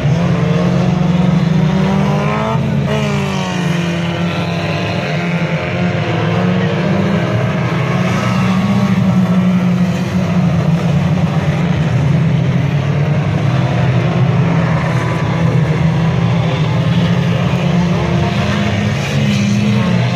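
Engines of several banger-racing stock cars running hard around the oval, loud and continuous. Their engine notes rise and fall, most clearly about two to three seconds in.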